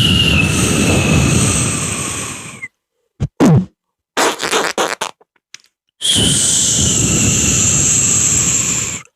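Beatboxer making a mouth sound effect of a fire-related object: two long hisses, each about three seconds, with a whistling tone that sinks slightly. Short clicks and pops come between them.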